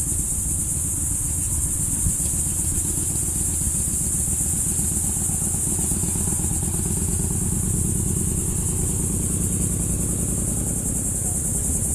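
Steady high-pitched chorus of insects, with a low rumble underneath that grows louder in the middle and eases off again.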